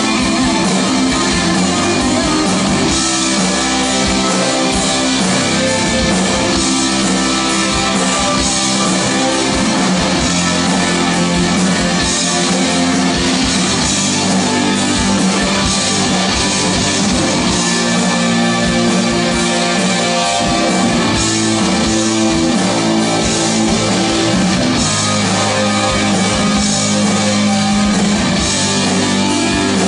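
Live rock band playing loudly: electric guitar over drum kit, steady and unbroken.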